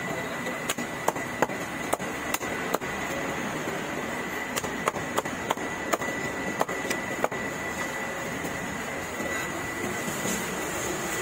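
Sharp knocks, about three a second, come in two runs and stop about seven seconds in, over steady background noise with a thin high whine.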